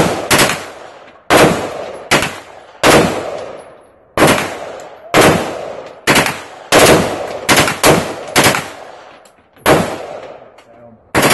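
Machine gun firing about fifteen shots, singly and in quick pairs, at irregular intervals of half a second to a second, each crack followed by an echoing tail.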